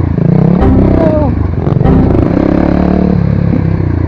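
Kawasaki D-Tracker 250X's single-cylinder four-stroke engine, fitted with a Yoshimura RS-2 slip-on exhaust, revving up and down with the throttle as the bike rides over rough grass. The sound comes through the rider's helmet-mounted microphone.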